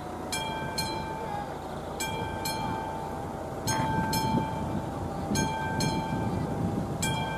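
Classic mechanical bell of an AŽD 71 level-crossing warning signal ringing in pairs of strikes, a pair about every second and a half, signalling that the crossing is closed for an approaching train. A low rumble grows louder from about four seconds in.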